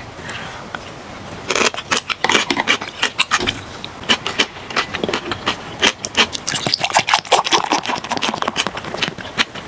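Beer poured from a large plastic bottle into a glass mug, with many quick clicks and crackles of the bottle being handled and the beer foaming, starting about a second and a half in.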